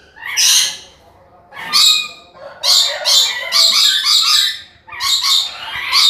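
Rainbow lorikeets screeching loudly: a run of harsh, grating calls in short bursts, coming thick and fast in the middle of the stretch.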